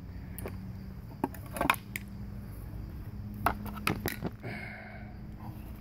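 Handling noise: scattered sharp clicks and knocks as metal jumper-cable clamps are taken off the scorched wooden board, over a faint steady low hum.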